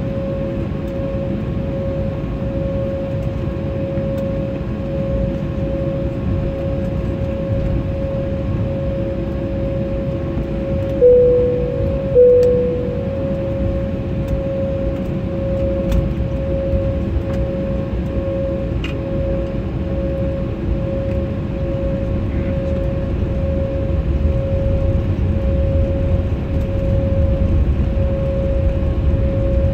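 Cabin noise inside a jet airliner taxiing: the engines run at idle with a steady hum that pulses slightly. Near the middle, two chime tones sound about a second apart, each fading quickly, and the low rumble grows a little toward the end.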